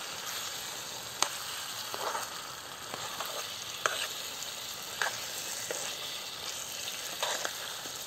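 Chicken and sour-plum stew sizzling in a metal pan over a wood fire, with a metal spoon scraping and clinking against the pan as it is stirred, sharp clinks every second or so.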